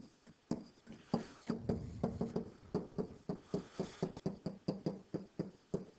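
Stylus tapping and scraping on a digital whiteboard during handwriting: a run of short soft taps, about four a second, one for each pen stroke.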